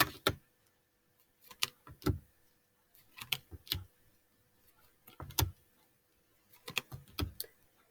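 Phonics sound cards from a pack being flipped one after another: short taps and flicks of card, usually in pairs, about every second and a half.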